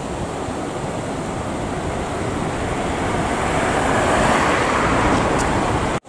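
Storm wind blowing steadily with the hiss of car tyres on a rain-soaked road, swelling as a car passes about four seconds in.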